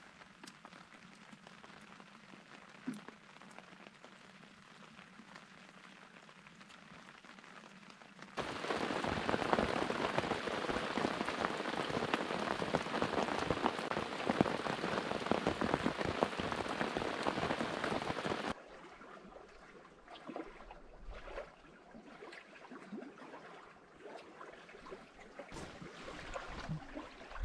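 Rain pattering on a canvas tarp shelter overhead. It is light at first, turns heavy and dense for about ten seconds, then drops abruptly to scattered drops and drips.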